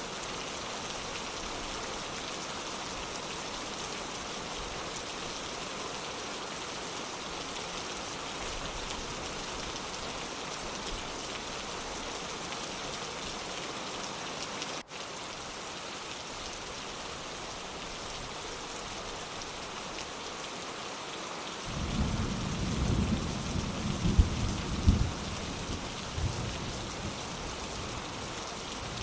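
Steady rain hissing, with a momentary dropout near the middle. About two-thirds of the way through, thunder rumbles for about four seconds with a few sharp cracks at its loudest.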